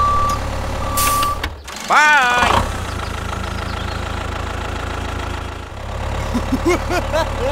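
A low engine rumble runs steadily throughout. Two short steady beeps sound in the first second and a half, and a brief squeaky call rises and falls about two seconds in.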